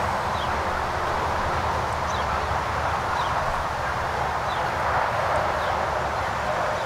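Steady outdoor background noise with a faint, short, high falling chirp about once a second, like a small bird calling.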